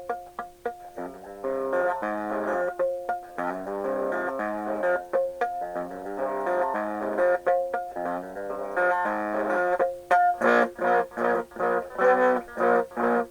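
Guitar in an unusual alternate tuning playing a punk/screamo-style riff of ringing octave chords with a shifting note. About ten seconds in it turns louder, with hard, clipped strokes several times a second: the part meant for yelling over.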